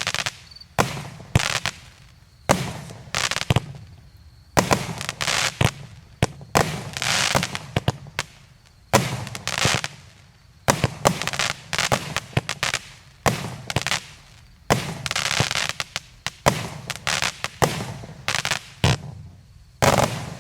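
JF C15-49/01 "Katyusha" firework cake firing its shots one after another: sharp reports about once or twice a second, some bursts trailing off in a longer hiss. The last shot comes near the end.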